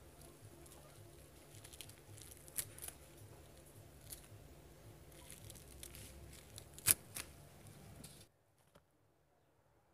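Young tarap fruit being torn apart by hand on a wooden board: soft tearing and crinkling of the fibrous flesh with a few sharp snaps, the loudest about seven seconds in, over a low steady hum. The sound cuts off abruptly a little after eight seconds.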